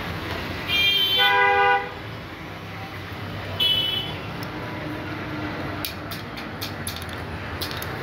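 A vehicle horn honks once for about a second, then gives a short second toot about two seconds later, over a steady low background rumble. A series of light clicks follows near the end.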